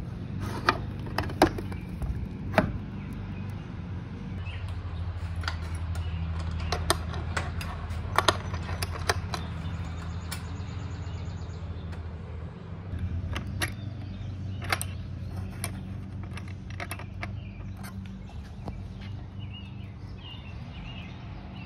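Scattered sharp clicks and knocks of a Grizzl-E charger's enclosure striking and sliding against its metal wall-mounting bracket as it is pushed on and slid down into place, over a steady low hum.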